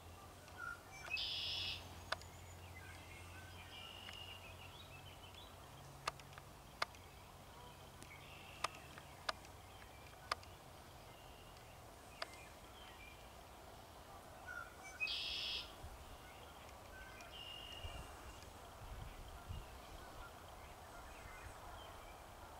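Quiet woodland background with a short, high bird call twice, about a second in and again about two-thirds of the way through, and a scattering of sharp single clicks in between.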